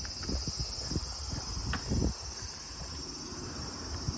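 Steady high-pitched chirring of insects in the roadside trees, with irregular low thumps of footsteps and wind on the microphone; the loudest thump comes about two seconds in.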